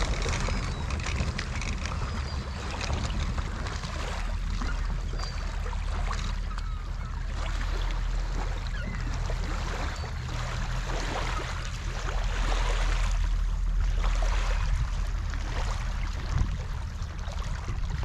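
Shallow sea water sloshing and splashing around a wader pushing an inflatable boat, under a steady low rumble of wind on the microphone.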